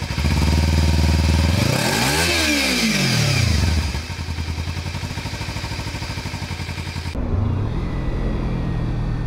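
A loud motorcycle engine revving, with a sweep in pitch about two seconds in. After a cut about seven seconds in, a Kawasaki Ninja 300's parallel-twin engine runs steadily under way, its pitch rising briefly just after the cut.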